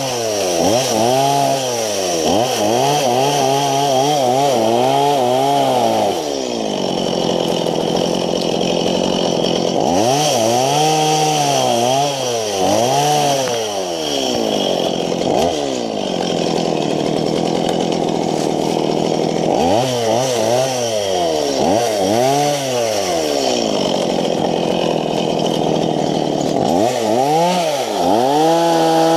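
Small two-stroke chainsaw revved up and down again and again in clusters, with steady-running stretches between, while cutting brush and saplings.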